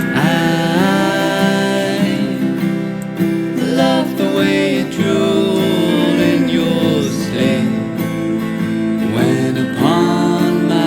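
Background music: an acoustic guitar strumming under a sung melody.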